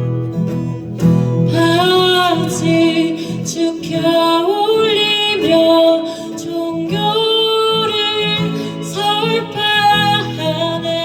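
Live band song: a strummed acoustic guitar, joined about a second and a half in by a singer carrying a melody.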